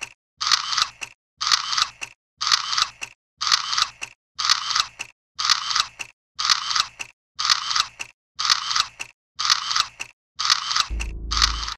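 Countdown sound effect: a half-second burst of mechanical clicking once a second, about eleven times, the last one joined by a deep low rumble near the end.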